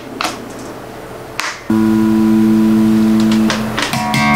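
Passive 5-string electric bass being connected to a small practice amp: a click, then a loud steady hum through the amp for about two seconds that cuts off suddenly. The first plucked bass notes come near the end.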